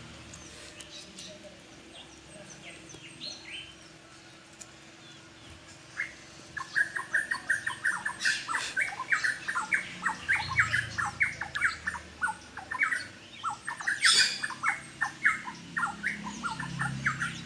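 Birds calling: a few faint calls at first, then from about six seconds in a fast, continuous run of short chirps, broken twice by a loud harsh squawk.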